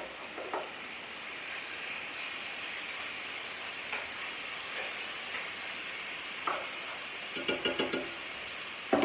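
Chicken sizzling in a hot cast-iron skillet as it is tipped into the oil; the sizzle builds in the first second, then holds steady. Near the end comes a quick run of knocks.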